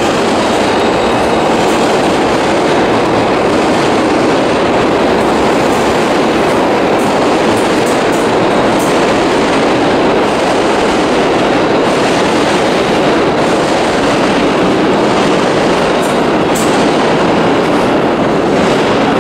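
New York City subway train running, a steady loud rumble of wheels on the track.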